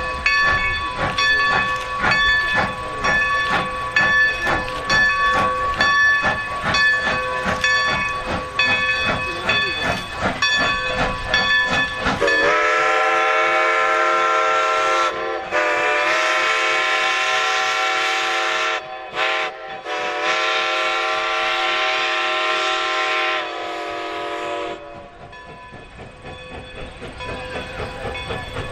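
Steam locomotives working a doubleheader with an even beat of about two strokes a second. About twelve seconds in, a multi-chime steam whistle blows the grade-crossing signal, long, long, short, long, lasting about twelve seconds, and then the sound drops away.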